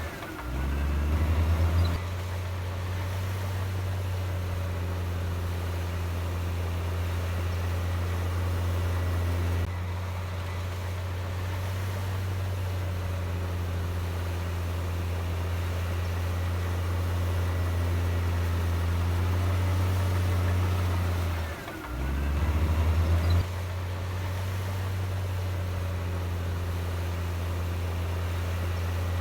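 Heavy diesel engine of a Komatsu D58E bulldozer running steadily. Twice, near the start and about 22 seconds in, the engine note dips and then runs louder and harder for a second or two before settling again.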